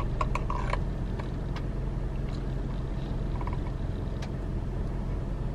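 Steady low hum inside a parked car's cabin, with a few small clicks and faint sucking sounds in the first second as a thick, cold milkshake is drawn up through a plastic straw.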